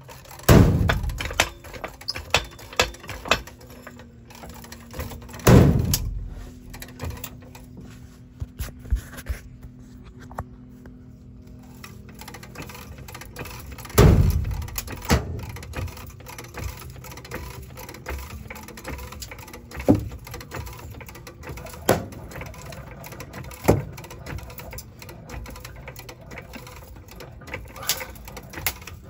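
Knocks and thuds from pushing and banging upward on the sagging underbody panel of an Airstream travel trailer. Heavy knocks come about half a second in, near six seconds and at fourteen seconds, with lighter knocks and rattles between.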